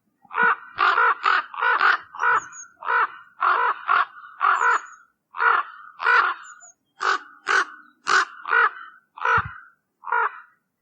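Common raven giving a long run of short, harsh caws, about two a second with a few brief pauses.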